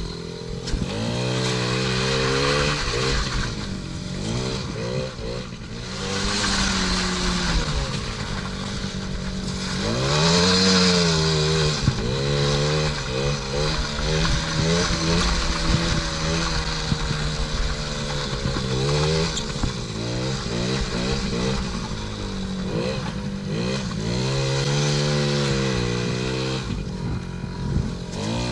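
50cc two-stroke engine of a small children's ATV being ridden. The throttle is worked on and off, so the engine note keeps rising and falling, with a few short stretches held at a steady pitch.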